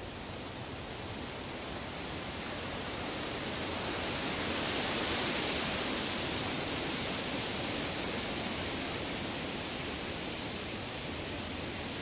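Woodland ambience of wind rushing through the trees, a steady hiss that swells in a gust about five seconds in and then eases back.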